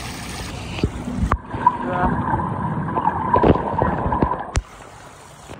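Water running over a glass wall into a drain grate, then muffled underwater gurgling and bubbling as the microphone is held under the water. A knock sounds about a second in and another near the end, where the sound drops away.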